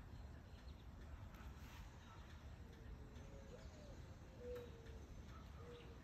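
Faint cooing of a bird: a series of low notes starting about three seconds in, one of them rising and falling, over a low steady background hush.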